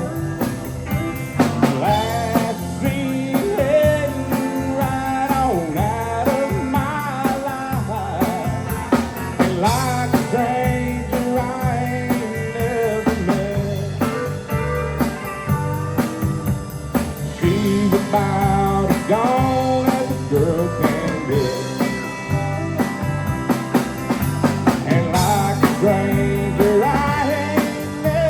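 Honky-tonk country band playing, with drums, bass and guitars under a lead melody that slides and bends between notes.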